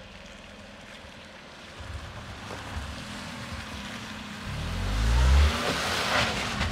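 A Maruti Suzuki Alto's three-cylinder engine as the car drives up and passes close by on a wet, slushy road. Its engine sound swells to a peak about five seconds in and then drops in pitch as it goes past, with a hiss of tyres through slush and water.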